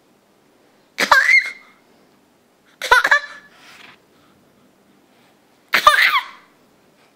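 A baby's excited squealing laughs: three short, high-pitched bursts with swooping pitch, a couple of seconds apart.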